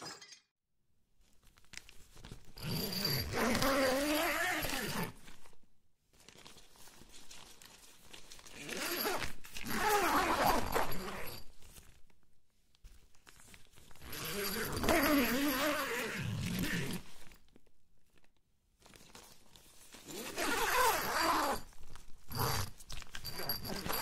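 Tent door zipper pulled along its track to open and close the door: four long zips a few seconds apart, each about three seconds, sliding up and down in pitch, with a couple of short tugs near the end.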